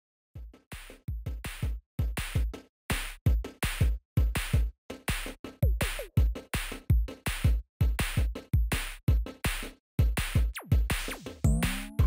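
Electronic music built on a drum-machine beat of sharp, quickly repeating hits with deep bass thumps. Near the end, sliding pitch sweeps lead into the next bar.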